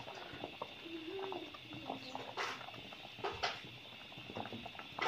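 Water boiling hard around whole tomatoes in a steel pot, a steady faint bubbling with small pops and clicks. A few louder scrapes or knocks come a little over halfway through.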